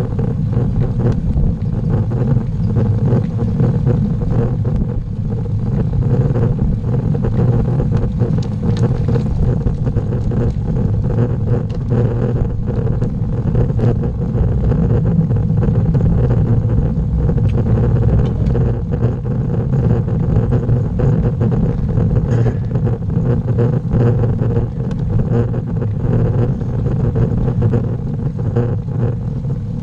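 Steady low rumble of wind and road vibration picked up by a camera mounted on a road bicycle as it climbs, with scattered faint ticks from the tyres and bike over the tarmac.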